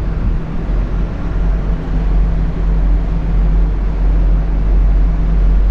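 Steady low drone of a large car ferry's engines while under way, with an even rushing noise over it.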